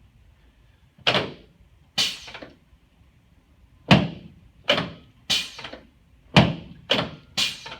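Eight sharp thuds at uneven intervals, each dying away quickly, the loudest about four seconds in and again past the six-second mark.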